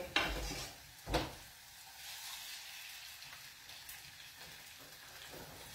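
Food frying in a pan on the stove, a faint steady sizzle, with a single knock about a second in.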